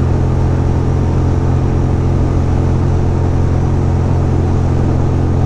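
2006 Ducati Monster 620's air-cooled V-twin engine running at a steady cruise on the open road, its note holding even in pitch and level.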